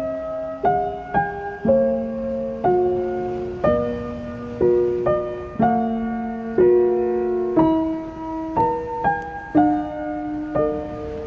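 Soft piano music: a slow melody of single notes and chords, struck about once or twice a second and left to ring.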